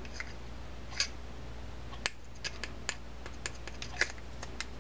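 Small irregular clicks and ticks from the plastic and metal parts of a Shimano Sustain 3000 FG spinning reel as they are handled and fitted back together, over a low steady hum.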